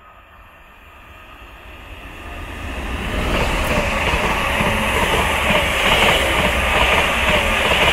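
Greater Anglia Class 745 electric multiple unit passing through the station at speed. The train noise builds over the first three seconds, then stays loud and steady as the coaches go by.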